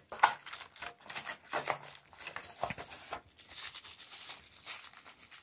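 Irregular rustling, crinkling and light tapping of cardboard, paper and a plastic wrapper being handled, as a phone charger in its plastic bag is lifted out of its box.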